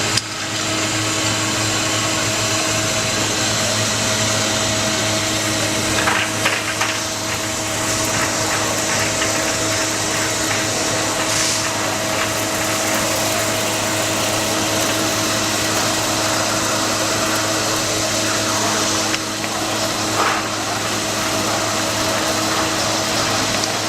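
Alterra MVU industrial vacuum running steadily, a constant motor hum over the rush of air, with a few brief rattles along the way.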